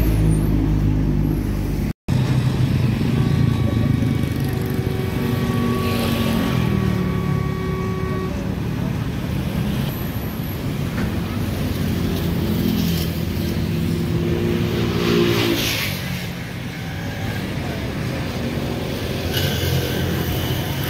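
Motor engines running and passing, a steady engine hum whose pitch rises and falls several times as vehicles and boats move by. The sound drops out briefly about two seconds in.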